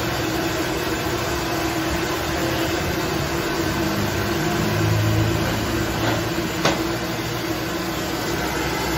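Strips of dough deep-frying in a large wok of hot oil over a burner: a steady frying hiss with a low hum, swelling around the middle, and one sharp click about two-thirds through.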